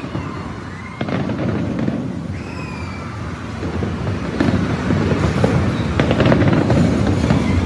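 Large aerial fireworks display: a continuous low rumble of booming shell bursts, broken by sharp cracks, getting louder from about halfway through.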